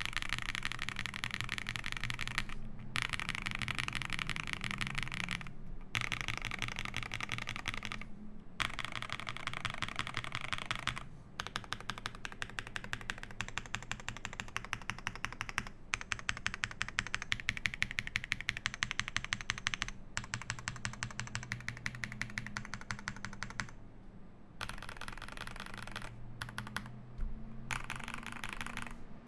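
Fast typing on a Space 80 custom mechanical keyboard with lubed Epsilon switches, an FR4 plate and GMK Beta keycaps: dense runs of keystrokes, broken by a few short pauses.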